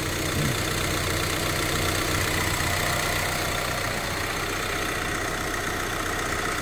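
VW Crafter's turbodiesel engine idling steadily, heard from the open engine bay.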